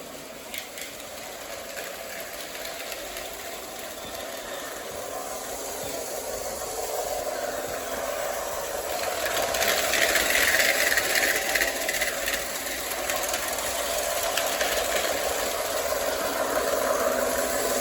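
O gauge model train running on the layout track, a steady motor hum with wheel rattle that grows louder about halfway through as it comes closer, then eases off a little.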